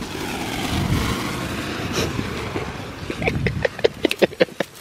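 Clear plastic wrap being pulled off the roll and wound around a car: a steady rasping hiss for about three seconds, then a quick run of sharp crackles and pops.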